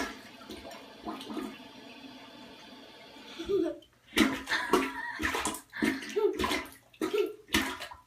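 Water running steadily, as into a bathtub, for the first three and a half seconds. It then breaks off into a series of irregular short bursts of sound.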